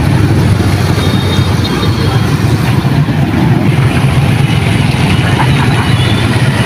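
Steady, loud motorbike traffic on a wet, partly flooded street, with engines running and tyres on water.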